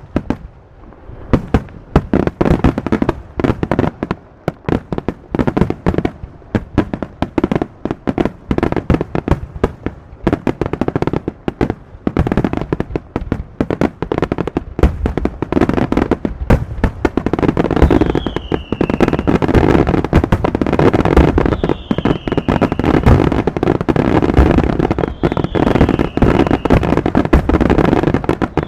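Fireworks display: a rapid, dense barrage of bangs and crackling explosions that grows thicker and louder toward the end, with a few short falling whistles in the second half.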